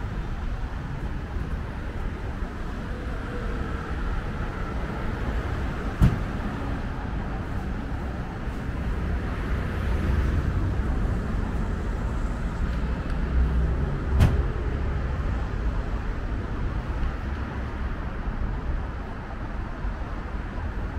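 City street traffic: a steady rumble of passing cars and buses, with two sharp knocks about eight seconds apart.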